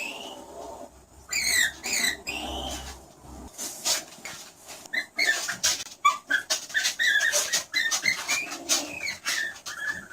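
Skunk squealing and chirping: a few high squeals that rise and fall about a second in, then a quick run of short chirps and clicks.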